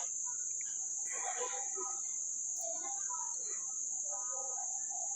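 Steady, high-pitched drone of insects, with faint scattered short sounds beneath it.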